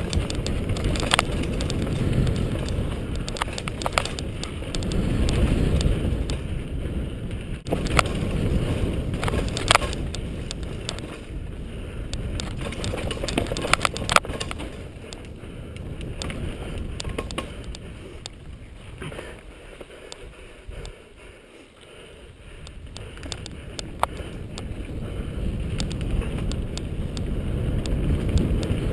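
Mountain bike ridden fast down a dirt trail: wind rumble on the microphone and tyre noise, with frequent sharp clicks and rattles from the bike over bumps. The rumble eases for a moment about two-thirds through, then builds again.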